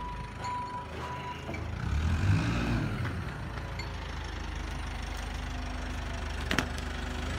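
An engine idling steadily, with a louder swell about two seconds in and a sharp click near the end.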